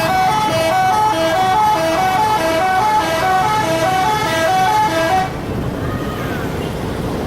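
Bus 'telolet' musical horn playing a quick, repeating multi-note tune, cutting off suddenly a little over five seconds in.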